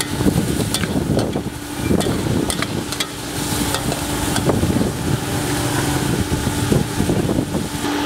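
A metal ladle scraping and clanking in a wok as crab curry is stir-fried over a charcoal stove, with sizzling. Under it runs the steady hum and rush of the small electric blower that fans the coals.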